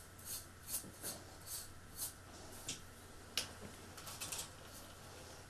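Sesame seeds swishing and rattling in a ceramic bowl as it is tossed to coat dough balls, in short bursts about two a second. A sharp click comes about three and a half seconds in, followed by a few light ticks.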